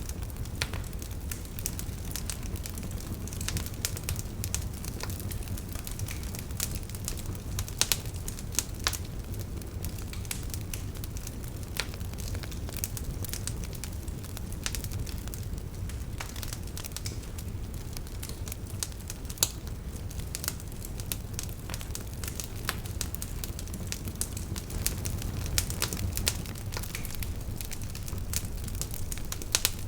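Wood fire burning in a fireplace: a steady low rumble of the flames with irregular crackles and occasional louder pops.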